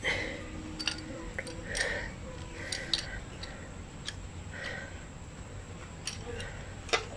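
Steel C-clamp being screwed tighter to press a needle bearing out of a Kawasaki KLX 150 suspension linkage: scattered small metallic clicks and brief creaks, with one sharper click near the end.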